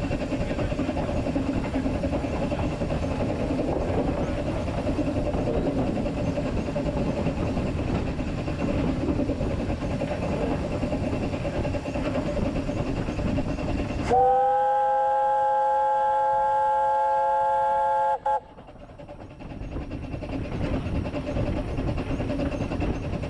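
Narrow-gauge steam locomotive No.3 'Sir Haydn' running along the line, heard from the footplate, then its steam whistle sounding once for about four seconds, several tones at once, loud, and cut off sharply. The running noise then comes back in.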